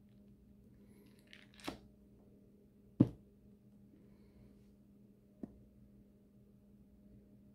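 A plastic Lego baseplate being peeled up off adhesive on plywood: a short tearing rasp, then a single sharp snap about three seconds in as it pulls free, and a faint click near the end.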